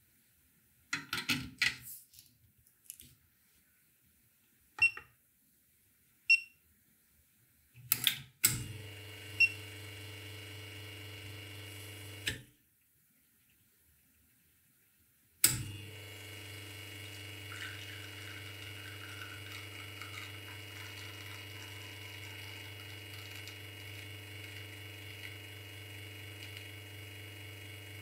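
A few light taps and short electronic beeps from a coffee scale. Then the Lelit Bianca espresso machine's pump starts with water running and hums steadily for about four seconds, stops suddenly, and starts again about three seconds later, humming steadily with water flowing while the espresso shot pours.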